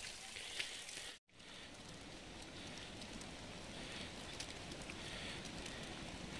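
Faint, steady outdoor hiss of wet snowfall, with scattered light ticks of flakes pattering. The sound cuts out briefly about a second in.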